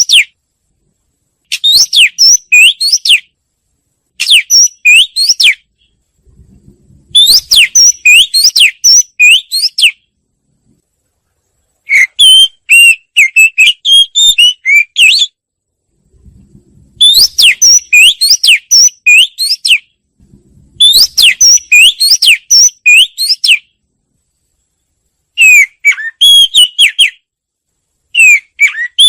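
Wagtail song: phrases of rapid, high, sweeping whistled notes, each lasting two or three seconds, repeated over and over with short pauses between them.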